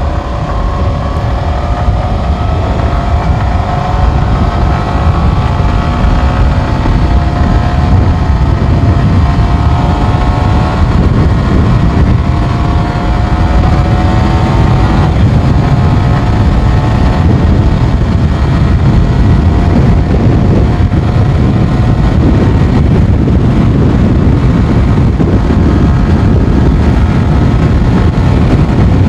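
Yamaha R15 V4's 155 cc single-cylinder engine under hard acceleration, its note climbing in pitch over the first half as speed builds past 100 km/h. Heavy wind rush on the microphone grows and takes over in the second half.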